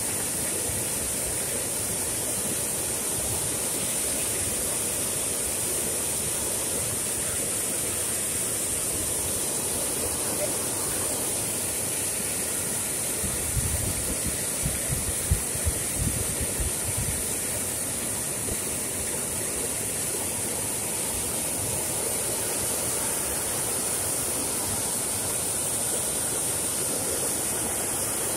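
Floodwater rushing steadily over the concrete spillway of an overflowing irrigation tank, a constant roar of white water. A few low thumps break in about halfway through.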